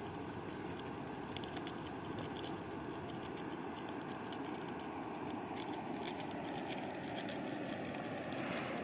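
Portable canister gas stove burning under a covered pot: a steady rushing roar with light scattered ticking.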